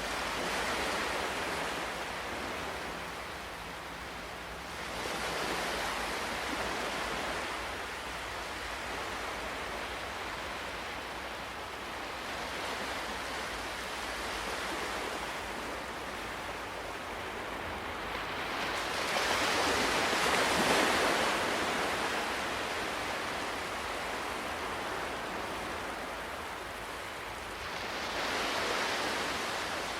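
Ocean waves rolling in and breaking in slow, uneven surges, four in all; the biggest comes about two-thirds of the way through.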